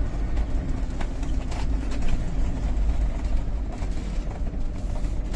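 Motorhome driving along a winding road, heard from inside the cab: a steady low engine and road rumble.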